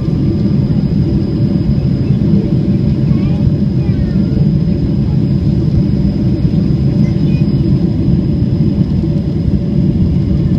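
Steady, loud cabin noise of a Boeing 767 on final approach with flaps extended: a deep rumble of engine and rushing air heard from a window seat over the wing, with a faint thin whine above it.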